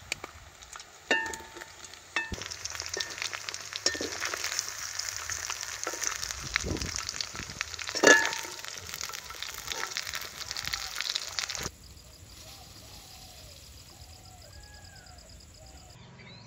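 Chicken pieces sizzling and crackling in hot oil in an aluminium pan, with a few sharp knocks, the loudest about 8 seconds in. The sizzling cuts off abruptly about 12 seconds in, leaving faint bird chirps.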